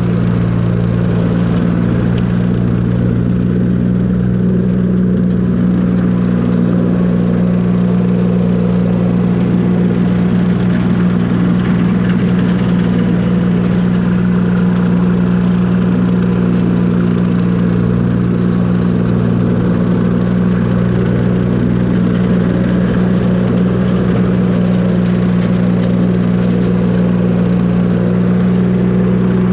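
Tractor engine running at a steady speed while driving a bush hog rotary cutter, a loud, even drone that holds unchanged throughout.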